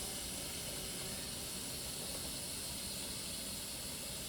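Tap water running steadily into a plastic pitcher as it is filled, heard as an even hiss.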